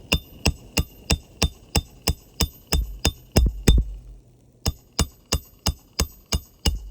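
Hammer striking a Roof Snake shingle-nailing tool, a quick series of about three sharp metallic blows a second, each with a short ring, pausing briefly a little past the middle before carrying on. The roofing nail being driven is bending instead of going in.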